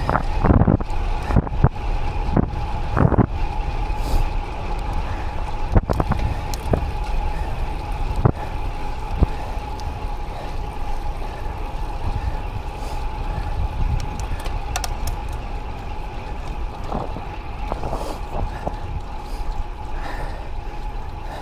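Road bike in motion: steady wind rush and tyre rumble on the action camera's microphone, with a steady high whine underneath. Scattered sharp knocks from bumps in the road, several in the first few seconds and a few more near the end.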